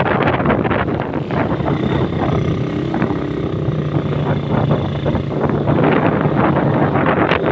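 Motorcycle engine running at a steady cruising speed, with wind buffeting the rider-mounted microphone.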